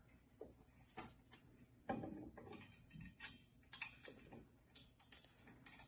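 Scattered light clicks and knocks of metal chair-frame tubes being fitted together and handled, irregularly spaced, the loudest a knock about two seconds in.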